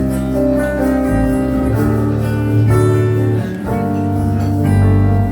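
Instrumental break in a song: guitar-led music with a steady bass line and chords changing about once a second, without singing.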